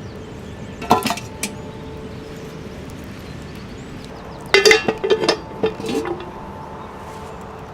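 Metal cooking gear clinking: one sharp clink about a second in, then a quick run of clinks and clanks about four and a half seconds in, each leaving a brief ringing tone.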